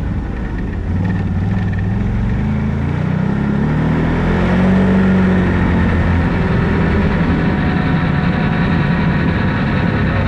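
Can-Am Renegade ATV's V-twin engine pulling away and accelerating, its pitch rising for the first few seconds. It then runs steadily at cruising speed.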